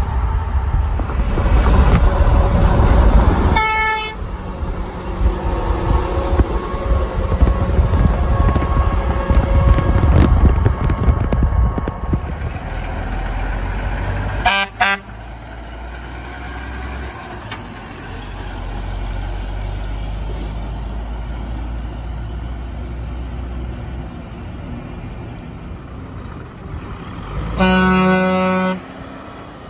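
Semi-truck air horns blown in short blasts. A Peterbilt 362's Grover 1042 air horns sound briefly about four seconds in, over heavy road and wind noise from driving alongside it. A quick double toot comes near the middle, a diesel truck engine runs low and steady after it, and a Kenworth T802SH's Grover 2000 air horns sound a blast of about a second near the end.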